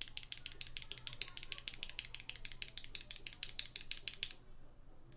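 Unlubed Gateron 8008 Ink linear mechanical keyboard switch with a keycap on it, pressed rapidly over and over, each keystroke clacking. The run of keystrokes stops about four seconds in.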